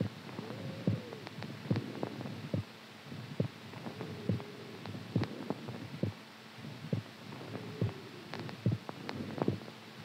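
Amplified human heartbeat: steady, evenly spaced thumps at about seventy beats a minute, with a soft rising-and-falling whoosh every three to four seconds.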